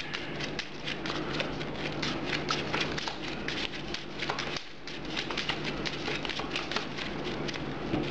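Pokémon trading cards being flicked through and handled by hand: a dense, irregular run of quick papery clicks, with a short pause about halfway through. A faint steady low hum sits underneath.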